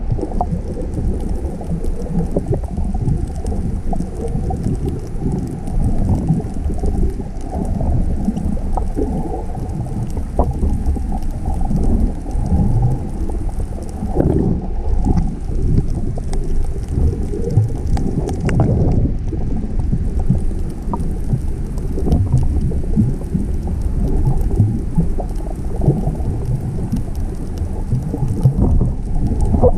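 Muffled underwater sound heard through a GoPro's waterproof housing: a continuous low rumble of water movement with scattered faint clicks and pops.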